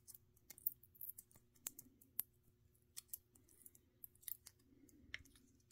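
Faint, irregular small clicks and snips of the plastic outer sleeve being trimmed and picked off a Rubycon Black Gate electrolytic capacitor, with a brief faint rubbing just after five seconds in.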